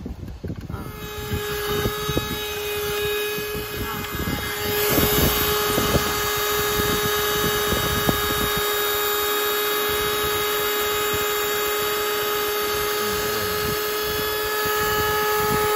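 Handheld corded car vacuum cleaner's motor running with a steady whine, getting louder about five seconds in as the nozzle works along the rubber door-sill seal.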